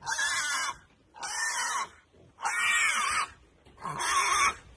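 Young pigs squealing while being loaded into a stock trailer: four squeals, each under a second long, rising and falling in pitch, with short gaps between them.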